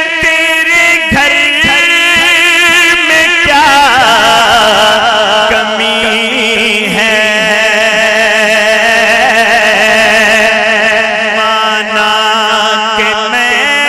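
A man's solo voice singing an Urdu naat: long held notes that turn into wavering, ornamented runs with vibrato, over a steady held tone beneath.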